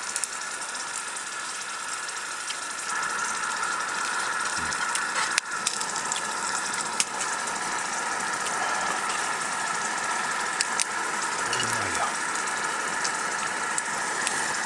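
Food sizzling in a frying pan on a camp stove, a steady hiss with scattered small crackles and clicks.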